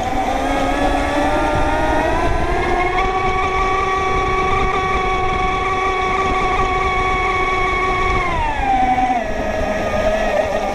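Radio-controlled racing boat's motor, heard from a camera on its deck, whining higher over the first few seconds, holding a steady pitch, then dropping in pitch about eight seconds in, over the rush of water and wind.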